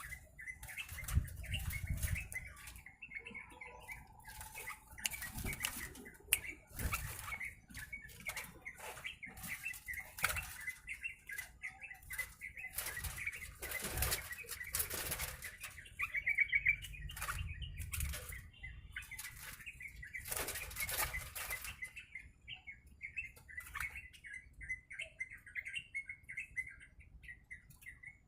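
A caged yellow-vented bulbul (trucuk) fluttering its wings in repeated bursts, which die down near the end. Short soft chirps run throughout.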